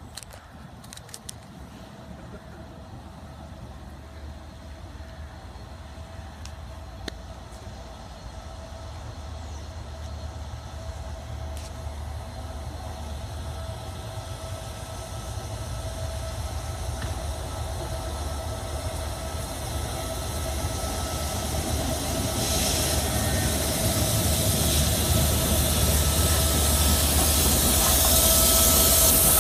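LNER Peppercorn A1 Pacific steam locomotive 60163 Tornado drawing into the station and passing close by with its train. A low rumble grows steadily louder, with a steady ringing tone throughout and steam hiss building over the last several seconds as it draws level.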